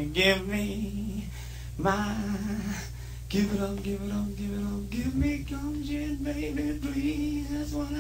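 A voice singing without words in long held notes that waver slightly: a few short phrases with pauses, then one note held for about four seconds, over a steady low hum.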